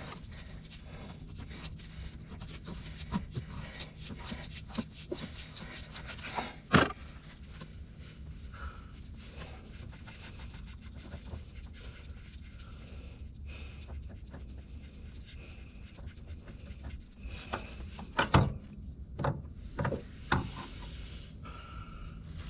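Hand work on a skid steer's fuel filters: scattered clicks, knocks and rubbing of parts and tools being handled, over a steady low hum. A sharp knock comes about seven seconds in, and several more knocks follow near the end.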